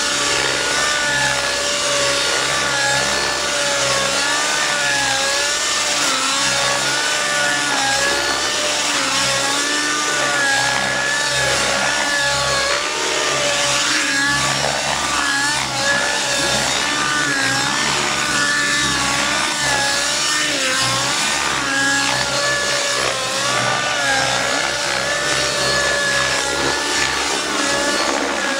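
Outrage Velocity nitro RC helicopter's glow engine and rotor running hard, the pitch rising and falling over and over as it is flown through aerobatics.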